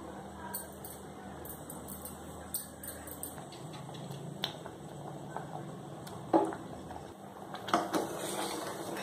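Milk and roasted rava simmering in a stainless steel pot on a low gas flame with a steady hiss. A steel ladle then knocks and clinks against the pot's side as it stirs, several sharp knocks from about six seconds in.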